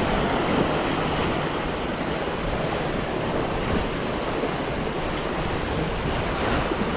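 Steady wind buffeting the microphone over the rush of water along the hull of a sailing yacht under way.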